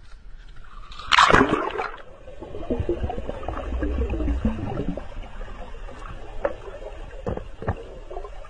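A Labrador retriever splashes into the sea off a boat about a second in, followed by muffled underwater bubbling and gurgling as it dives under.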